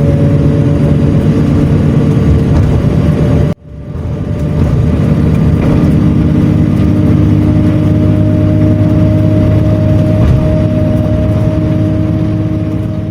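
Engine of an odong-odong road tourist train running steadily under way, a loud drone with road noise. It cuts out abruptly about three and a half seconds in, fades back up, and its pitch creeps slowly upward before it fades near the end.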